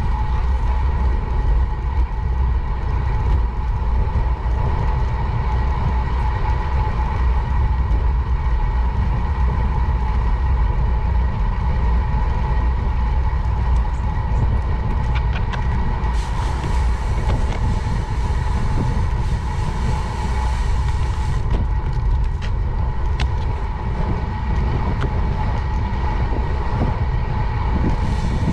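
Wind rushing over the microphone and tyres rolling on asphalt as a bicycle rides along at speed, with a steady whine throughout.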